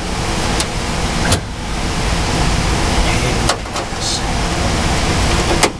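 Carrier water-source heat pump running steadily at close range, a loud, even mechanical rush, with a few sharp knocks.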